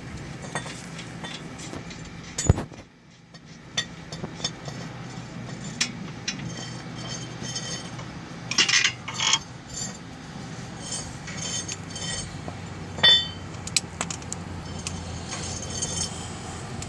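Metal hand tools clinking and knocking against each other and on car parts during axle work: scattered clicks, a sharp knock about two and a half seconds in, and ringing metallic clinks around the middle and near thirteen seconds, over a steady low hum.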